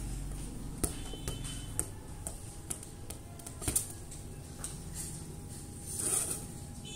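Scattered light taps and clicks as a toddler handles a plastic ball on a concrete floor, with the sharpest taps about a second in, near two seconds and just under four seconds in.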